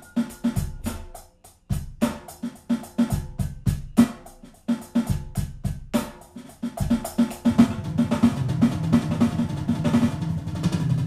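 A Roland electronic drum kit played as a kick-and-snare beat of sharp, evenly paced hits. From about seven and a half seconds in, the playing becomes denser and louder.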